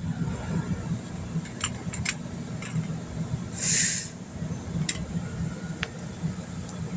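Several light clicks and taps, like small plastic toys being handled, over a steady low hum, with one brief hissing rustle near the middle.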